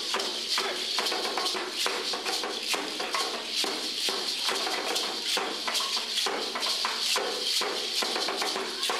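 Dance rattles shaken in quick, steady strokes: a dry, hissing rattle keeping time with the dancer's steps, with no drum beneath it.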